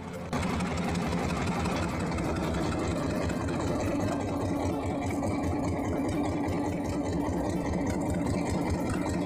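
Fishing boat's engine idling steadily, an even low hum.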